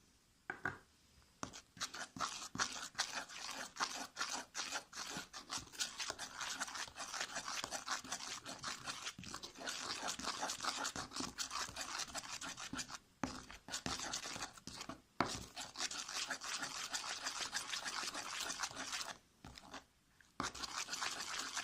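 Fast, repeated scraping and squishing as a glue-based slime mixture is stirred in a container, many strokes a second, pausing briefly near the end before starting again.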